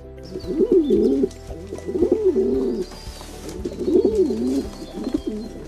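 Pigeons cooing over and over in low, rolling phrases, about one a second, with faint high chirps of other birds behind.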